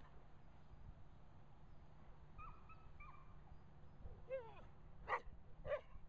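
Two dogs at play giving a few short whines and yips, the loudest two about five and a half seconds in.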